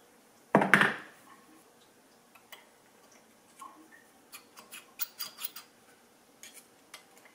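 Metal hand tools handled at a vise during brake master cylinder reassembly: one loud clunk about half a second in, then a quick run of light metallic clicks around the middle.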